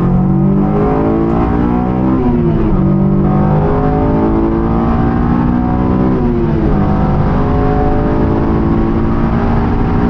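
2008 Honda S2000's 2.2-litre four-cylinder engine with an aFe Takeda intake, heard from inside the cabin accelerating hard. Its pitch climbs and drops sharply at an upshift about two seconds in, climbs again, and drops at a second upshift about six and a half seconds in, then rises slowly.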